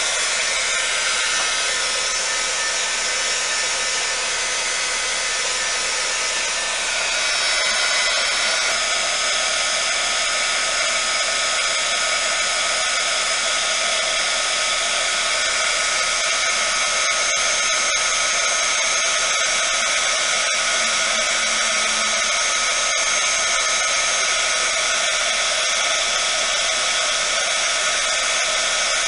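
Heat gun running steadily, a loud blowing rush with a high fan whine, used to push pigmented epoxy resin into wave and cell patterns. It gets a little louder about seven seconds in.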